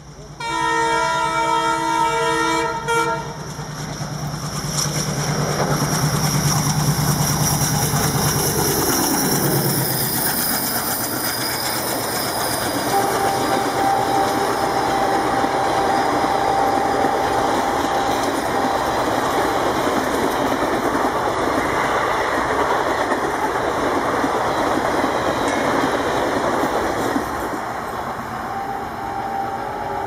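WDM-3D diesel locomotive blowing its EMD-style air horn for about three seconds as it approaches. Its ALCO diesel engine chugs loudly as it passes at speed, with the engine note dropping in pitch as it goes by. Then the coaches rush past with a steady clickety-clack of wheels on the rails, fading near the end.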